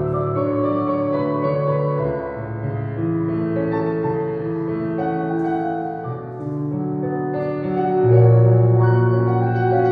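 Slow piano music of held chords under a melody, the kind of accompaniment played for a ballet barre exercise. A louder low chord comes in about eight seconds in.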